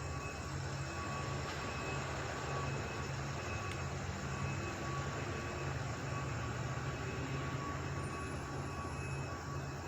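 Steady low mechanical drone of running machinery, its hum pulsing about twice a second, with faint thin high tones coming and going.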